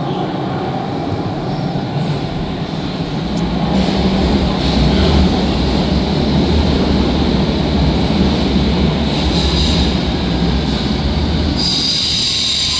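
London Underground S Stock train pulling into the platform: a heavy rumble that builds over the first few seconds and holds, then a high-pitched squeal about a second before the end as it comes to a stop.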